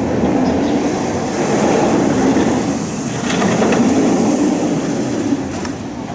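Steel roller coaster train rumbling along its track as it runs past, with a few clicks and rattles from the wheels and cars; the rumble fades a little near the end.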